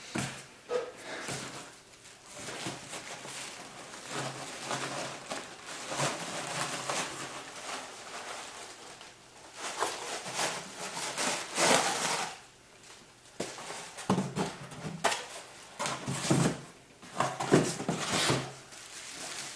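Packaging being handled and unwrapped: an irregular crackling rustle with short scraping and tearing strokes, louder in spells past the middle.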